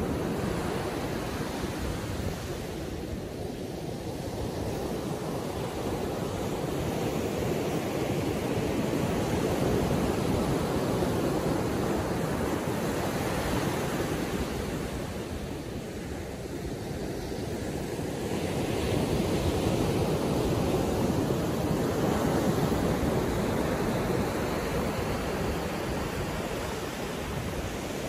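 Small ocean waves breaking and washing up a sandy beach: a steady rush of surf that swells twice, about ten seconds in and again about twenty seconds in, as sets of waves break.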